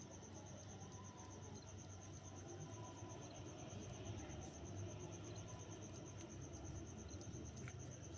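Faint, steady high-pitched pulsing trill of an insect, about eight pulses a second, over a low hum.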